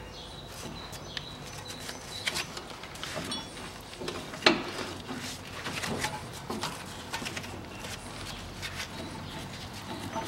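Scattered light metallic clicks and knocks as the front steering knuckle with its new hub bearing is worked back onto the splined drive shaft and lower ball joint, with a louder knock about two seconds in and the loudest about four and a half seconds in.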